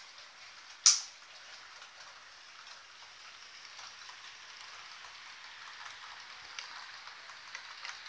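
Steady hissing, pattering running noise of H0-scale model trains on the layout's track, with small clicks and one loud sharp click about a second in. The noise slowly grows louder toward the end.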